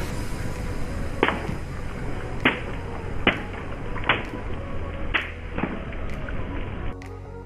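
Water balloons bursting one after another under a slowly rolling car tyre: a string of sharp pops, roughly one a second, over a steady low rumble.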